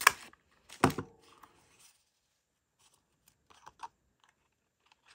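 A six-hole paper punch being handled and worked: a sharp click at the start, a heavier clunk just under a second in with a brief metallic ring, then a few soft clicks and rustles.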